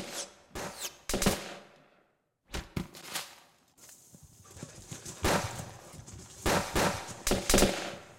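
Film sound effects of a gunfight: a string of gunshots in irregular bursts, each with an echoing tail, with a short lull about two seconds in. Near the start, bullets whiz past with falling-pitch whistles.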